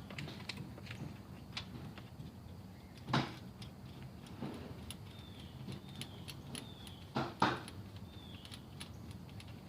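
Small metallic clicks and handling knocks from reinstalling the spark plug in the pressure washer's engine, with one sharp knock about three seconds in and two close together around seven seconds.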